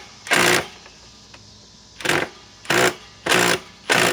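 Cordless impact driver running a long Phillips drywall screw in five short trigger bursts, each a fraction of a second, with pauses between.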